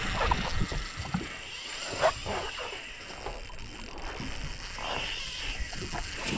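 Water lapping and slapping against the hull of a small boat, irregular, with a sharper knock about two seconds in.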